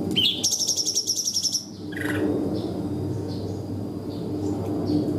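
A cungkok songbird singing a fast 'tembakan' burst: a rapid run of high repeated notes lasting just over a second, followed by scattered short high chirps over a low steady hum.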